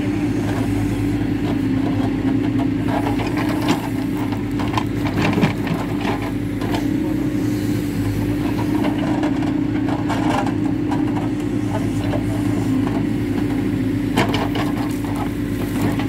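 Hidromek 102B backhoe loader's diesel engine running steadily under hydraulic load as the backhoe bucket digs into a pile of soil, with a few short knocks and scrapes from the bucket.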